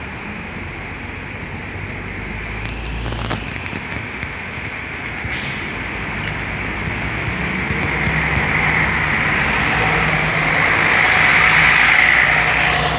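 Scania city bus engine running at a stop and then pulling away, getting steadily louder as it moves off, with a short hiss of air about five seconds in.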